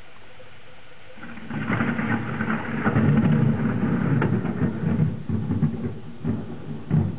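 Thunder from a nearby storm: a rumble breaks in about a second in, swells to its loudest a couple of seconds later with sharp cracks, then rolls on and slowly fades.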